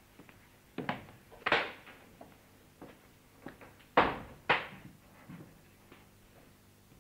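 Soldiers' boots tramping and stamping on the floor: irregular knocks, with a loud one about a second and a half in and two loud stamps about four seconds in, half a second apart.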